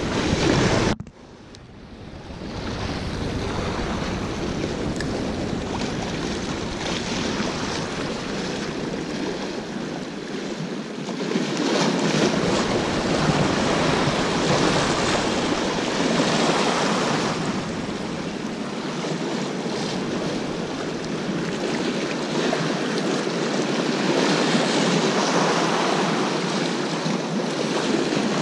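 Sea surf washing against the boulders of a rock jetty, swelling and easing every few seconds. It drops away abruptly about a second in, then builds back up.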